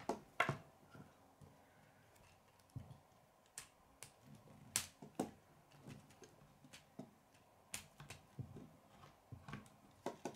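Plastic K'nex rods and connectors clicking as they are handled and pressed together: a scattering of sharp, irregular clicks, a few of them louder.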